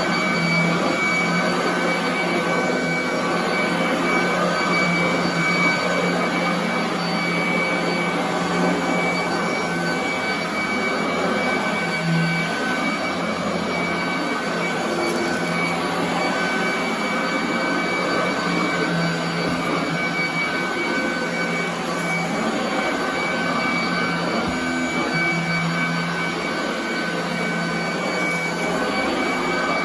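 Royal commercial vacuum cleaner running steadily on carpet: a constant motor whine with a low hum beneath, the low hum swelling slightly now and then.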